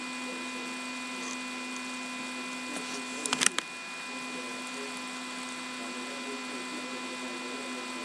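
Steady electrical hum with a few thin, high steady tones over it, broken about three and a half seconds in by a quick run of four clicks.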